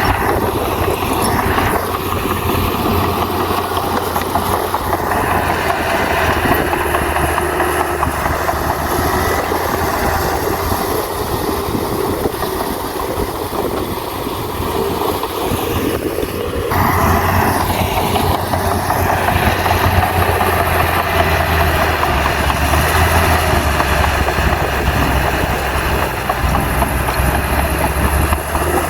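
Komatsu crawler bulldozer working, its diesel engine running steadily with heavy mechanical clatter. The sound changes abruptly about halfway through.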